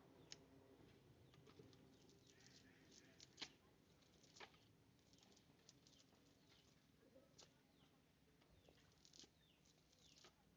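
Near silence, with faint scattered ticks and a few short chirps.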